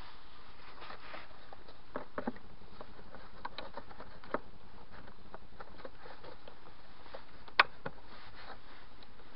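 Gloved hands fitting a pleated pollen filter into its plastic housing: light rustling with scattered small clicks and knocks, and one sharp click near the end.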